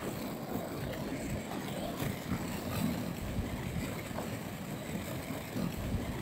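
Quad roller skate wheels rolling over rough asphalt: a steady low rumble with gritty texture and small irregular knocks.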